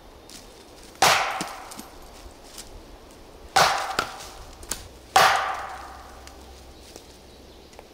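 Three loud wood knocks: a long dead branch swung hard against a tree trunk, each hit ringing out briefly, the second and third coming closer together. These are deliberate tree knocks, knocked out to draw an answering knock from the swamp.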